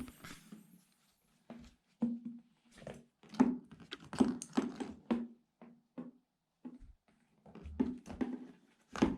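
A cat pawing and scratching at a cardboard box, trying to get at a ball caught inside. It makes a string of short, irregular scratches and knocks on the cardboard, with brief pauses between them.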